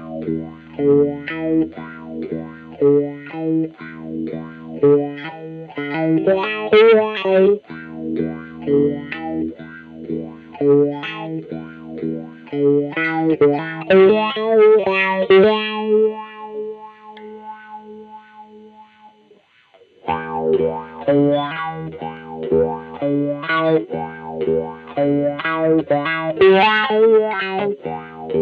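Electric guitar, a 1994 Mexican-made Fender Stratocaster with GFS reverse-mounted Jimi-style pickups, played through an amp: a run of notes and chords, then a chord left ringing and dying away about 16 seconds in. Playing starts again about 20 seconds in.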